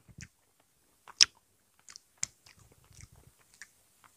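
A man chewing a piece of chicken curry: scattered soft wet mouth clicks, with one louder click about a second in.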